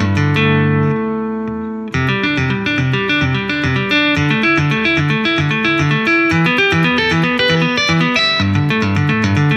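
Electric guitar laid flat on the lap and played with two-handed tapping on the fretboard. A held chord rings and fades for about two seconds, then a fast, rhythmic run of tapped notes starts up again.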